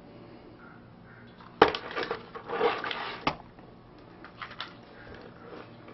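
Handling noise as power supply units are picked up and moved about: a sharp clack, a couple of seconds of rattling and rubbing, a second clack, then a few light ticks.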